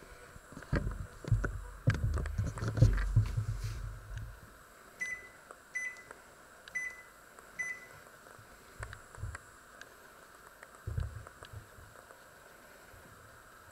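Panasonic microwave oven's control panel beeping as its buttons are pressed: four short, high beeps about a second apart. Before them come a few seconds of low bumps and rumble, and after them a few soft clicks.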